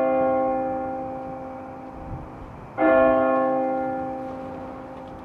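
Church bell tolling: a stroke rings at the start and slowly fades, and a second stroke comes just under three seconds in and fades the same way.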